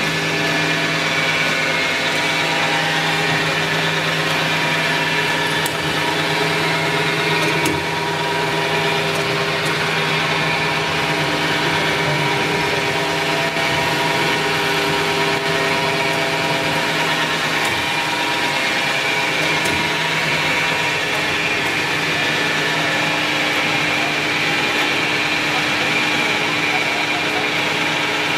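EPS foam hot-melt recycling machine running, its electric drive motors and screw extruder giving a steady machine hum with several steady pitched tones.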